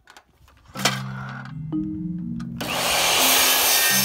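A mitre saw starts running and cutting trim about two and a half seconds in, a loud steady noise, over background music with a bass line that comes in about a second in.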